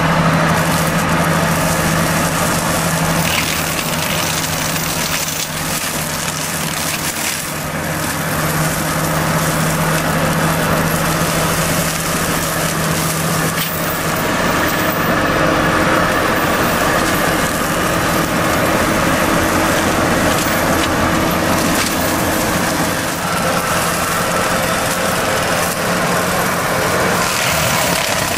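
Skid steer loader's engine running hard with a Seppi Miniforst forestry mulcher working, its rotor shredding bush and wood. A continuous drone over a dense grinding noise, its note changing about halfway through.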